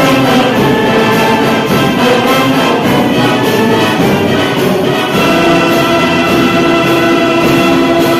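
Wind band with brass playing a slow praise hymn in held chords over a steady beat.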